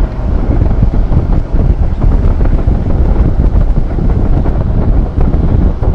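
Wind buffeting the camera microphone over the low rumble of an HGV lorry on the move.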